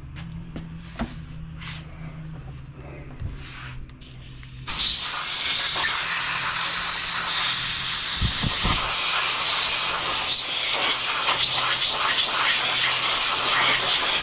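Compressed-air blow gun blowing off a cleaned single-cylinder Briggs & Stratton overhead-valve cylinder head: a loud, steady hiss that starts about five seconds in and cuts off suddenly at the end, after a few seconds of light tool-handling clicks.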